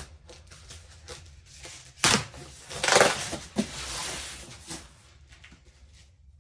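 A cardboard shipping box being opened by hand: small handling clicks and rustles, a sharp knock about two seconds in, then a loud tearing sound a second later that fades out over about a second.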